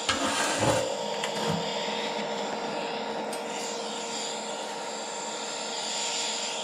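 Camera and workpiece being handled and repositioned on a steel bench: a few knocks and rubs in the first second and a half, over a steady hiss.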